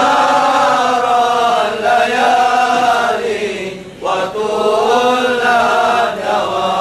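Men's voices chanting a Sufi qasida in long, drawn-out melismatic notes, with a short break for breath about four seconds in.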